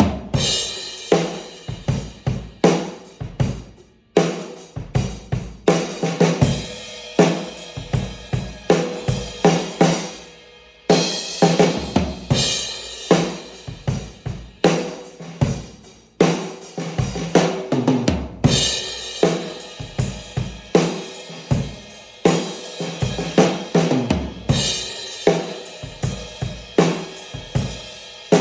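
Acoustic drum kit played in a steady rock groove: a Mapex kit with a Pearl Session Studio Select snare, Paiste 2002 hi-hats and a Zildjian Z Custom crash. It mixes snare backbeats, bass drum, hi-hat and crash accents that open new sections, played over the recorded song.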